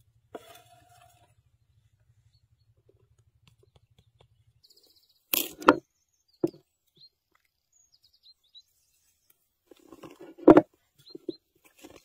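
Sparse food-preparation handling sounds: a few sharp knocks and rustles of hands and a utensil working cubed butter in a wooden bowl, loudest about halfway through and again near the end. Between them come brief, high bird chirps.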